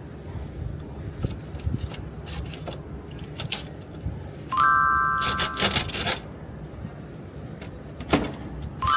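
Small metallic clicks and clinks of aluminium solar-racking hardware: a spring-loaded mid clamp being handled and fitted. A bell-like ding rings out about halfway through and lasts a second or so, and another comes at the very end.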